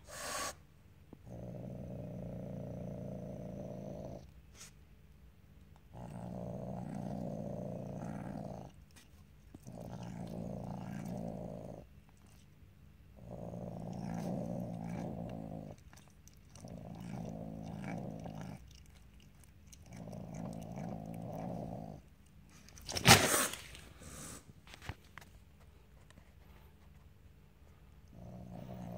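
Young Asian leopard cat making a low rumbling sound while eating a raw chicken drumstick, in repeated stretches of two to three seconds with short breath pauses between. About two-thirds of the way through there is one brief, sharp, loud noise.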